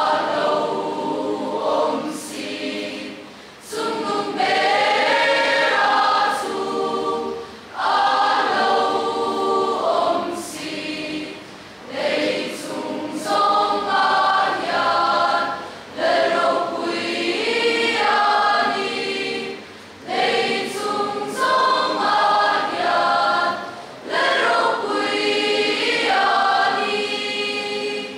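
Mixed choir of young women and men singing a hymn together, in phrases of about four seconds with a short break between each.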